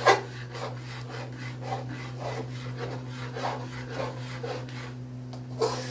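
Metal spatula stirring and scraping chili sauce around a steel wok, in quick repeated strokes, with a sharp clank of metal on the pan right at the start. A steady low hum runs underneath.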